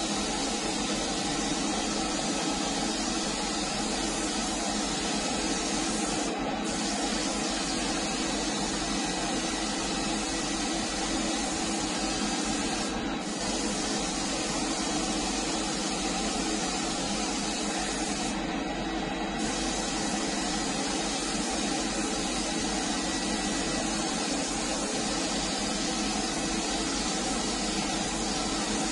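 Compressed-air spray gun hissing steadily as it sprays paint. The hiss thins briefly three times, about a third, half and two thirds of the way through, over a steady hum underneath.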